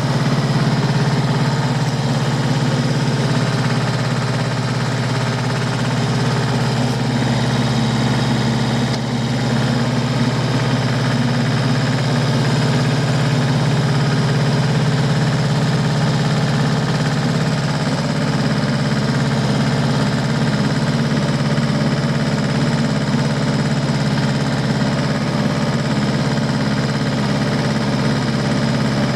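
Diesel tractor engine running at a steady speed.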